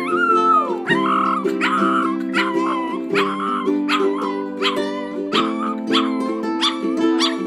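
Newborn puppy crying in short, high yelps, repeated roughly every half second, the first drawn out and falling in pitch. Background music plays underneath.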